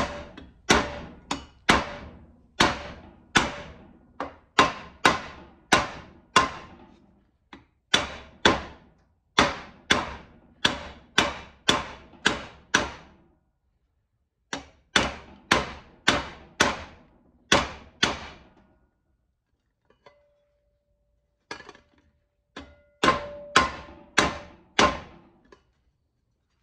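Ball-peen hammer striking sheet metal clamped in a bench vise, about one blow a second in runs with short pauses, forming a groove into the panel. Some of the later blows leave a faint metallic ring.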